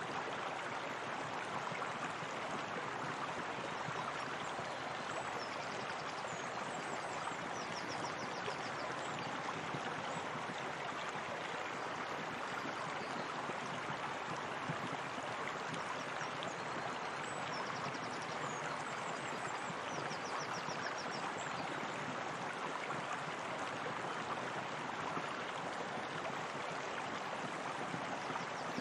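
Steady running and bubbling water of a hot spring, with faint high-pitched quick trills a few times.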